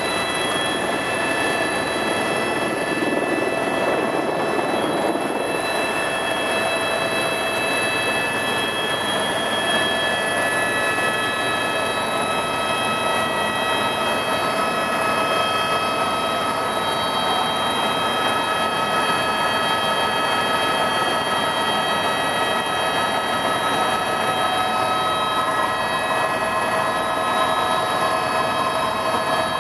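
Tour helicopter heard from inside the cabin during lift-off and climb-out: a steady rushing noise with several constant high whines from the turbine and gearbox.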